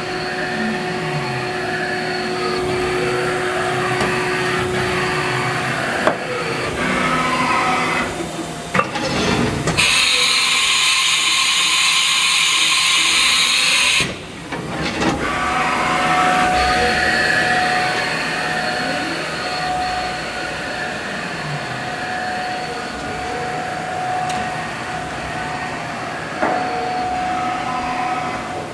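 Haas Mini Mill CNC vertical machining center running under power: servo motors whine in tones that slide up and down as the axes move, over a steady machine hum. A few sharp clicks come around six to nine seconds in, then a loud hiss of air lasts about four seconds, and a steady tone holds through the second half.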